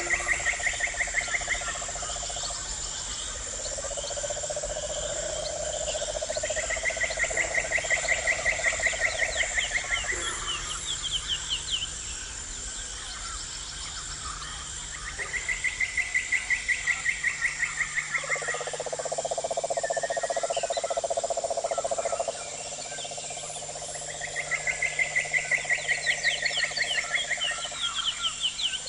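Chorus of frogs and insects: a steady high insect drone under repeated pulsed trills, one higher-pitched and one lower. Each trill lasts a few seconds and comes back every several seconds.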